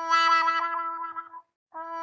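A steady, buzzy horn-like tone at one fixed pitch with a fast flutter. It breaks off about one and a half seconds in and starts again just before the end, as a repeating loop.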